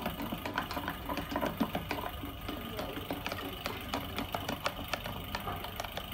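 Spoon stirring a glue slime mixture in a container, making rapid, irregular clicks and scrapes against the container's sides, over a steady low hum.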